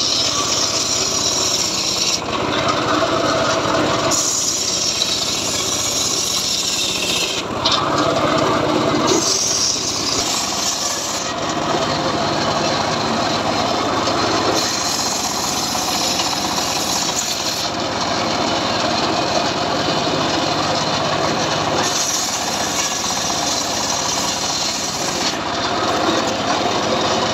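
Homemade circular sawmill blade ripping johar (jowar) logs into planks: a loud, continuous cutting noise that shifts in tone every few seconds as each cut goes through the wood.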